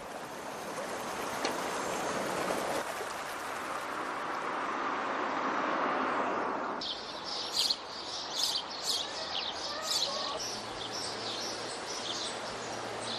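Steady rush of running water for the first seven seconds or so, then gives way to small birds chirping repeatedly in short high calls.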